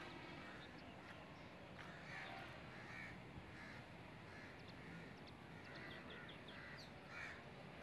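Faint crows cawing several times, with small high bird chirps, over quiet outdoor ambience.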